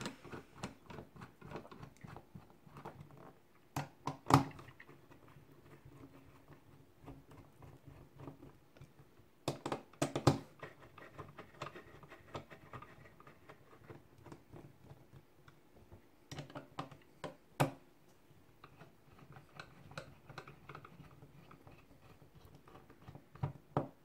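Small screwdriver turning the corner screws of an Intel NUC mini PC's bottom plate: light ticking and scraping. A few louder clicks and knocks come about 4, 10 and 17 seconds in as the little case is handled and turned over.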